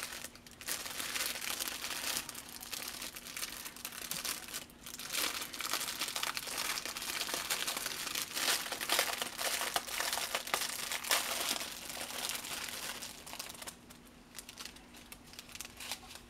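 Thin plastic bags crinkling and rustling as hands open and handle a bundle of small bagged diamond-painting drills, over a faint steady hum.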